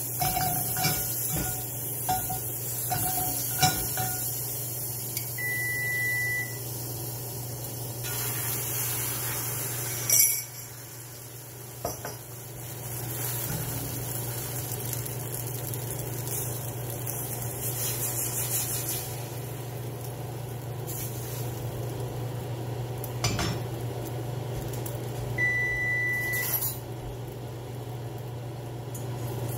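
Omelet cooking on the stove: a pan and utensils clinking, knocking and scraping over a steady low hum. There is one sharp knock about ten seconds in, and two short steady high tones, one early on and one near the end.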